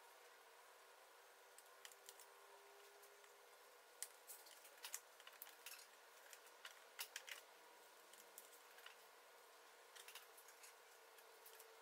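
Near silence with scattered faint light clicks and taps of small veneer pieces and a knife being handled, thickest in the middle and again near the end.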